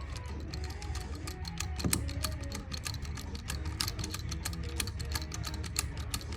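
Background guitar music, with many small irregular clicks and ticks over it.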